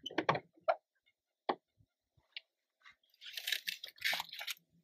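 Fishing tackle being handled in a small boat while a crappie is reeled in: a few sharp knocks and clicks in the first second and a half, then about a second and a half of rough rustling noise near the end.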